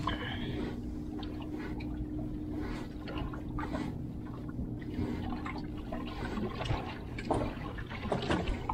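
Water sloshing and slapping against the hull of a small aluminium fishing boat, with a steady low motor hum from the boat running at trolling speed. Scattered knocks come more often near the end.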